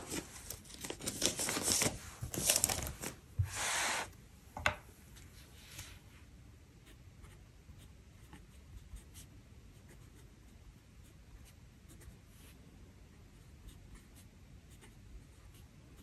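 Paper rustling and handling for the first few seconds. Then faint, scattered scratching of a TWSBI ECO fountain pen nib writing on planner paper.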